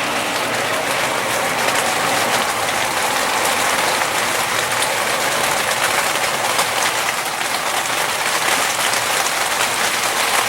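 Water from a small waterfall feature splashing steadily into a koi tank: a continuous, fairly loud spatter of falling water.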